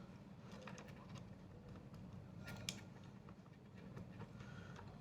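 A few faint clicks and taps of small parts being handled in an opened MacBook Pro during reassembly, with one sharper click a little past halfway.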